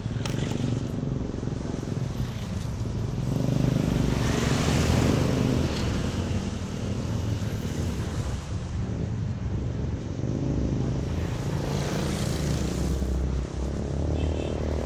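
Honda Click 125i scooter's 125 cc single-cylinder engine running while riding, with wind and road noise. It gets louder for a couple of seconds about four seconds in.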